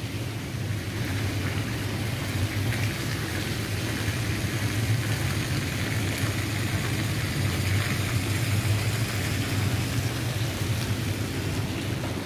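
Steady low drone of running engine machinery, with an even hiss over it and no clear impacts.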